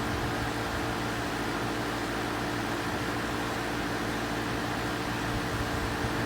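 4-ton Amana air conditioner running steadily: fan noise over a constant low hum made of several steady tones, with no change in speed or load.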